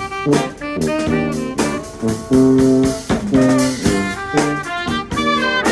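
Live brass band playing a groove: a tuba bass line, trumpets, saxophone and trombone over a drum kit, with the horns climbing to a higher line near the end.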